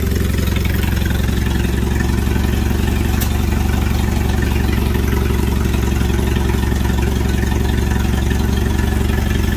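McCormick International AW6 tractor's kerosene-burning four-cylinder engine idling steadily.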